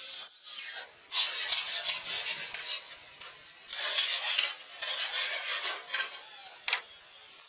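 Scraping and rasping against a rough surface, in bursts of one to two seconds with short pauses between them.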